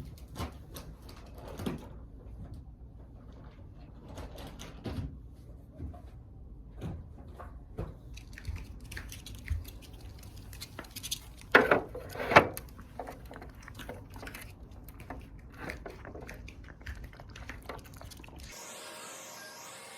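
Scattered light knocks and clatter of household objects being handled, with two louder knocks about twelve seconds in. Near the end a different steady background sound takes over.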